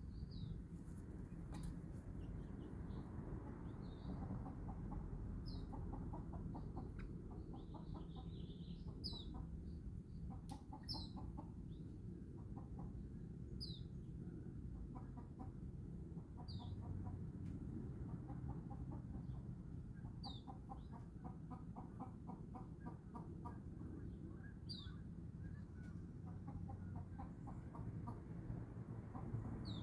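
Chickens clucking in quick runs, with short high chirps falling in pitch every couple of seconds, over a steady low background rumble.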